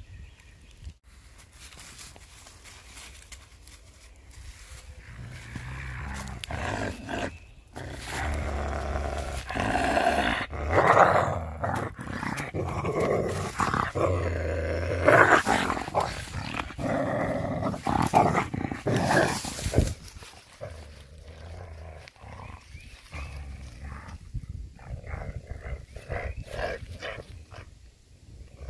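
A coyote growling and snarling possessively over a glove it has taken in its jaws. The growl swells loud from about six seconds in and carries on to about twenty seconds, then breaks into quieter short growls near the end.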